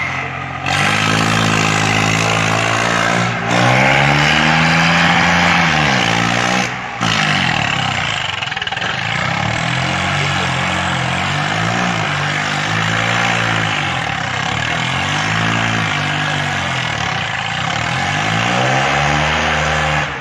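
Swaraj 855 tractor's three-cylinder diesel engine revved hard again and again while the tractor is held up on its rear wheels in a wheelie. The pitch rises and falls about every two seconds.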